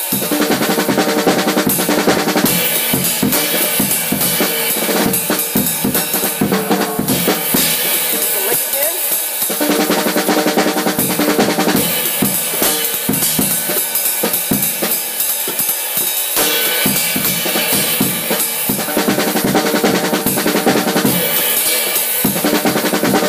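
Drum kit played fast and without a break: snare and bass drum in accented paradiddle sticking, played as a swung hemiola lick. The sound of the drums struck changes every few seconds.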